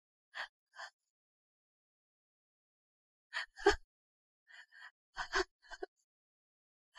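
A woman crying quietly: short breathy sniffs and gasps, with a louder sob about three and a half seconds in, followed by a run of quick shaky breaths.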